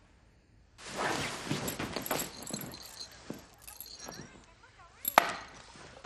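Pills rattling and clinking in a small bottle as it is picked up, opened and shaken out into a hand, with the rustle of two people sitting up and moving about; a sharp click about five seconds in.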